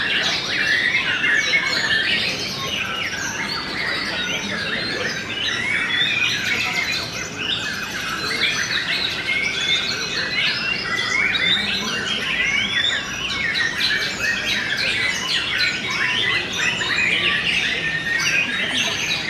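Many caged white-rumped shamas (murai batu) singing at once in a song contest: a dense chorus of short rising and falling phrases that overlap without a break.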